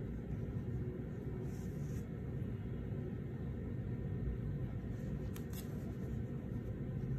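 Steady low background rumble, with faint rustling and two light ticks about five seconds in as a shrink-wrapped phone box is turned over in gloved hands.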